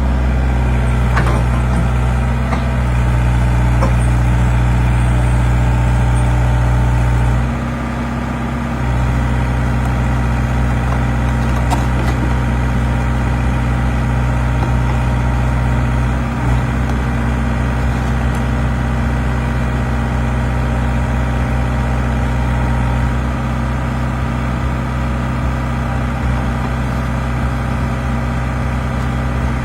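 Hyundai excavator's diesel engine running steadily while it works, with a brief drop in engine level about eight seconds in and a few faint clicks.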